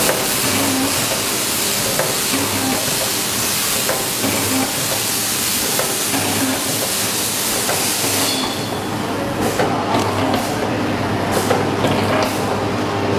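Jelly and liquid packaging machine running: a loud, steady hiss for about the first eight seconds, then irregular mechanical clicking and clatter, over a steady low hum.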